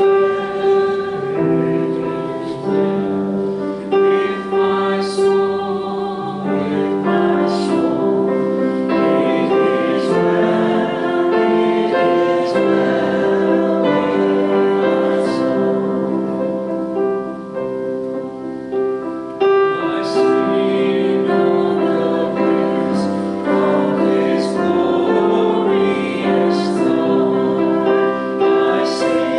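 Congregation singing a hymn together with piano accompaniment.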